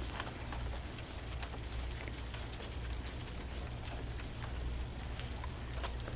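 Light rain falling, an even patter with scattered small drop ticks.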